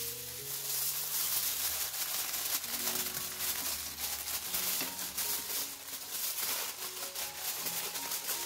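Aluminium foil crinkling and rustling as it is spread and pressed over a baking dish: a dense run of small crackles. Soft piano music plays underneath.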